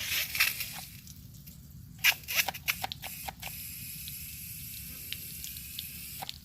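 Water spraying from an electric pressure washer's wand with the pump motor not switched on, so only hose pressure drives it. There is a burst of spray at the start, some sputtering about two seconds in, then a steady hiss.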